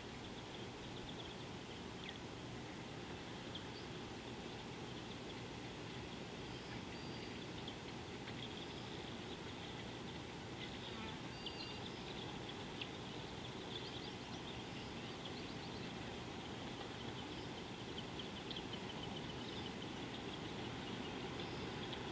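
Outdoor bush ambience: a steady background hiss with faint, high chirps, short trills and brief whistles of small birds scattered through it.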